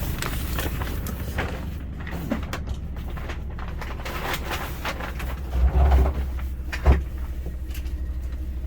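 Steady low rumble of a train, with a few knocks and clatters, the loudest a little under six seconds in and a sharp knock near seven seconds.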